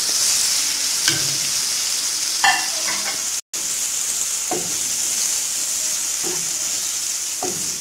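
Strips of still partly frozen chicken breast sizzling in hot butter and vegetable oil in a frying pan. A wooden spatula stirs them, scraping and knocking against the pan a few times. The sound drops out for an instant about halfway.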